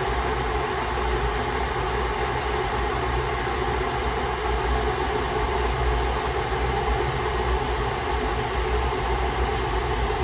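A machine running steadily: an unchanging hum with a low rumble underneath.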